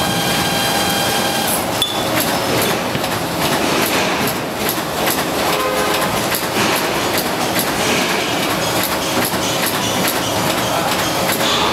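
Steady clattering and running noise of machinery on a motor stator production floor, where coil winding machines are at work; a faint steady whine sounds for about the first second and a half.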